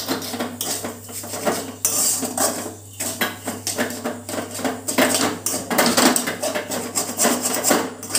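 Steel spatula scraping and clinking against a steel kadai as a crumbly chana dal filling is stirred and pressed, in a quick, uneven run of scrapes and knocks.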